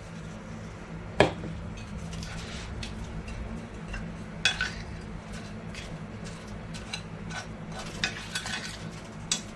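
A utensil stirring and clinking against a bowl while dry seasoning mix is blended, with one sharp knock about a second in and a few lighter clinks later. A low steady hum runs underneath.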